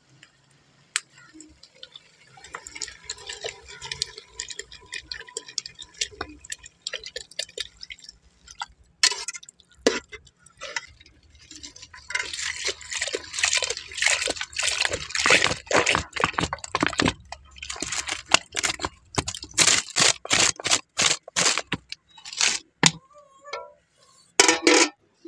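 Milk poured into an aluminium cooking pot, then a metal ladle stirring it through the grated vegetables. The ladle gives many quick scraping and clinking strokes against the pot, loudest in the middle of the stretch.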